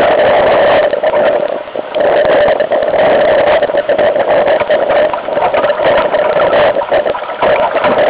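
Strong wind buffeting the microphone of a camera mounted on a sailing dinghy: a loud, steady rush with a humming tone running through it, easing briefly about two seconds in and again near the end.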